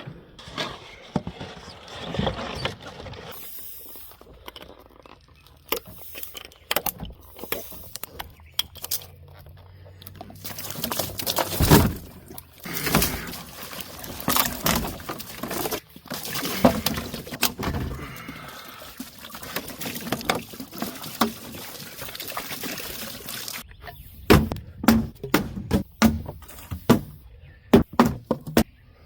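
Vinegar being poured into a bath for soaking a cylinder head and intake, with scattered knocks and clunks throughout.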